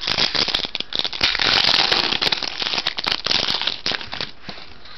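Foil wrapper of a football trading-card pack crinkling and crackling as it is torn open by hand. It is a dense run of crackles that thins out about four seconds in.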